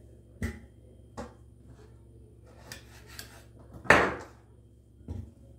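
Kitchen clatter: a few separate knocks of a knife and utensils against a wooden cutting board and a cooking pot. The loudest is a sharp clank about four seconds in that rings briefly.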